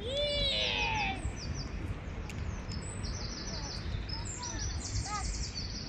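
A cat meows once, a drawn-out call that rises and falls in the first second, over small birds chirping high and repeatedly in the trees. A shorter, fainter call follows about five seconds in.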